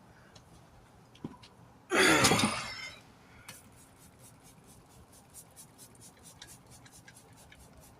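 Soapy water being brushed and rubbed onto a tire bead before mounting: quick, repeated scratchy strokes, several a second, in the second half. A loud rush of sound lasting about a second comes about two seconds in.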